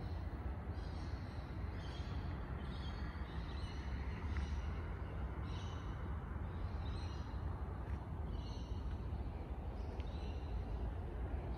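A bird calling over and over, short calls roughly once a second, over a low steady rumble.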